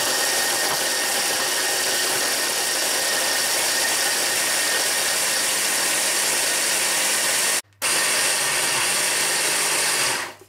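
600-watt electric chopper (a hand-blender motor on a chopper bowl) running at full speed, grinding digestive biscuits, cold butter and walnuts into crumbs. It stops for a moment about three-quarters of the way through, starts again and cuts off near the end.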